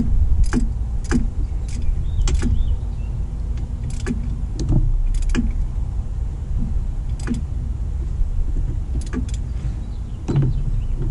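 Scattered sharp clicks and knocks, about a dozen at uneven intervals, of tools and fuel-line fittings being handled, over a steady low rumble.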